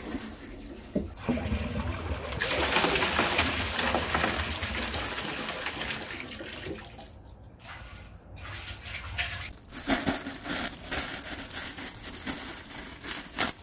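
Water rushing and splashing as it pours from a drainpipe into a glass tank, easing off after a few seconds. Near the end, plastic wrapping crinkles as it is handled.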